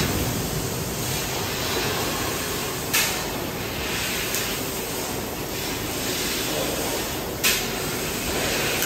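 HSG TL660S heavy-duty tube laser cutter working on a large steel pipe: a steady mechanical hiss and rumble, broken by a short, sharp hiss about three seconds in and again near the end.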